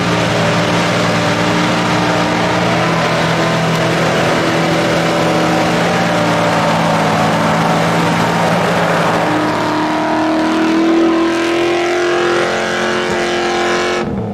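Land Rover Discovery's tuned, remapped Rover V8 running hard at high revs as it powers through deep mud ruts, with the engine note climbing about ten seconds in. The sound drops off abruptly near the end.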